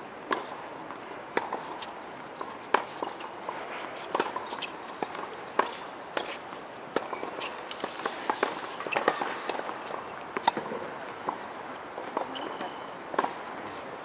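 Irregular sharp knocks of tennis balls being struck and bouncing on outdoor tennis courts, some louder and nearer, over a steady outdoor background.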